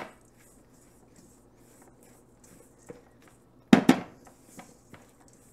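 Silicone spatula stirring a stiff, crumbly oat-and-flour topping in a stainless steel mixing bowl: faint soft scraping, with two loud knocks of the spatula against the bowl close together a little under four seconds in.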